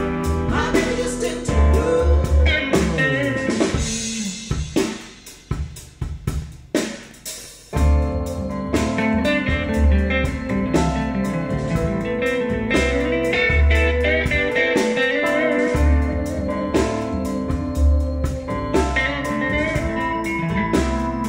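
Blues-rock band music with slide guitar, bass and drums, played through Focal Theva N1 bookshelf speakers and picked up by room microphones. About 3 s in, the bass and drums drop away, leaving gliding slide-guitar lines; the full band with heavy bass comes back about 8 s in.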